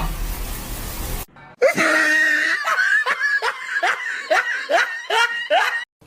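A person laughing hard in a rapid run of short, falling 'ha' sounds, about three a second, for around four seconds. It follows about a second of steady hiss.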